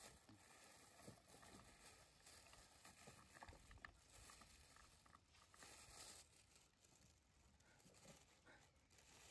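Near silence with faint scattered clicks and rustling, from in-shell peanuts being tipped out of a plastic bag onto a plate, several clicks a few seconds in.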